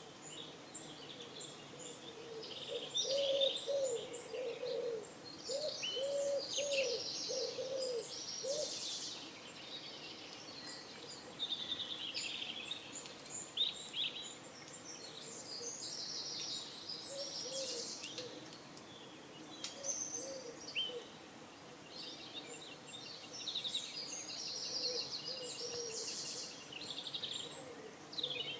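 Small songbirds chirping and trilling continuously. Pigeons coo in a series of low, rounded notes from a few seconds in to about a third of the way through, and fainter coos come again later.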